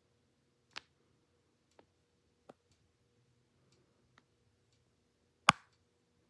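Home Decorators Collection Shanahan ceiling fan running with a faint steady motor hum, with a few light irregular clicks and one sharp, much louder click near the end.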